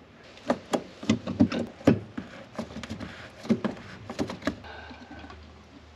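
Irregular clicks and knocks of hands and a screwdriver working stubborn fuel hoses off the metal fittings of a fuel-tank sending unit, the loudest knock about two seconds in.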